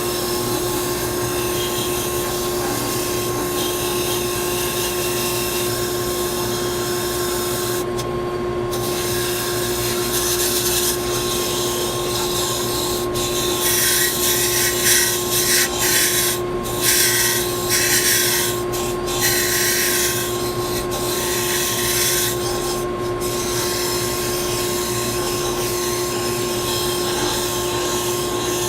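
Disc sander running with a steady motor hum while a wooden part is sanded down to marked lines. Between about 13 and 23 seconds in, the sanding noise rises in a series of short, louder grinding bursts as the wood is pressed against the disc, then settles back to the steady run.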